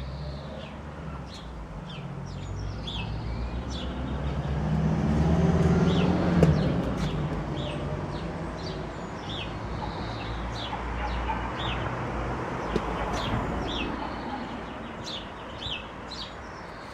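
Small birds chirping repeatedly, over a low rumble of a passing vehicle that swells to its loudest about six seconds in and then fades away.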